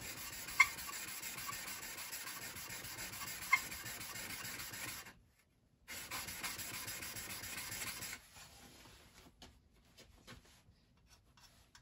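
Steel card scraper, held upright in a wooden jig, being rubbed across the broad face of a sharpening stone to flatten its edge: a steady rasping scrape with two sharp clicks. It breaks off briefly about five seconds in, resumes, and stops about eight seconds in, followed by a few light handling clicks as the scraper is lifted off.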